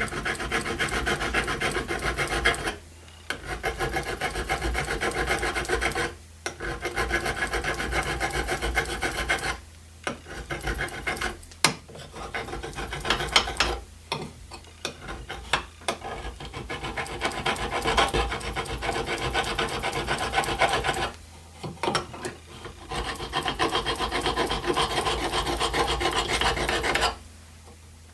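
Hand file rasping back and forth across a peened rivet head, filing it down flush with the metal. The fast strokes come in long runs, broken by brief pauses about every few seconds.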